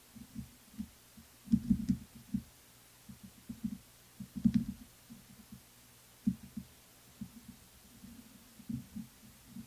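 Irregular soft low thumps and knocks of hands handling a small circuit board and capacitors on a workbench mat, with a few sharper clicks about two seconds in and again about four and a half seconds in.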